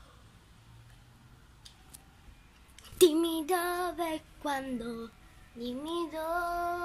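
A young girl singing a melody in a single voice, starting about three seconds in after a quiet start.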